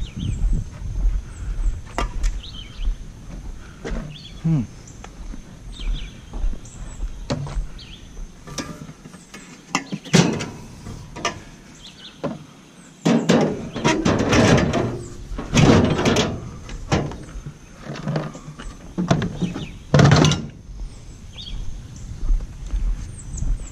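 A run of knocks, thuds and clattering as objects are picked up and shifted about, with the heaviest, loudest clatters in the second half.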